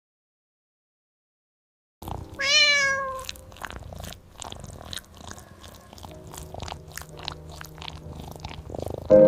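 After two seconds of silence, a cat gives one short meow that rises and then falls. It is followed by several seconds of irregular crunchy chewing and munching clicks.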